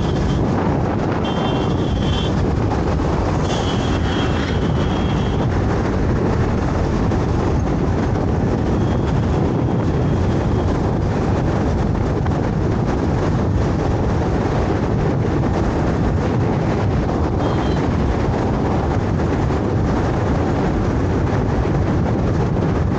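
Steady wind and road noise from riding a moving scooter through traffic, the wind pressing on the microphone. Two brief high-pitched horn tones sound in the first five seconds.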